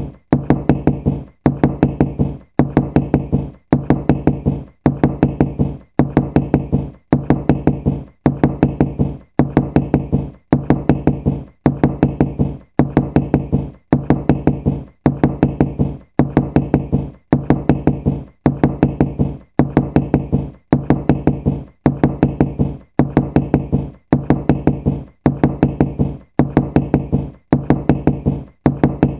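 Knocking in quick groups of several raps, each group followed by a short gap. The same pattern repeats about every second and a half, like a looped sound effect.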